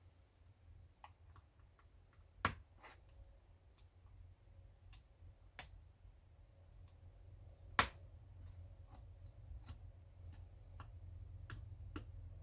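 Scattered light clicks and taps from handling the fuse box and its parts while packing it with dielectric grease, with three sharper clicks about two and a half, five and a half and eight seconds in. A low hum sits underneath.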